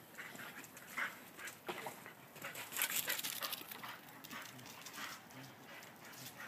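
A dog breathing in short, irregular puffs as it swims.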